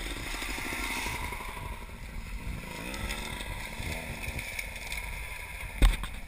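Dirt bike engine running, revving up and down briefly in the middle, over a steady low rumble. A single sharp knock about six seconds in is the loudest sound.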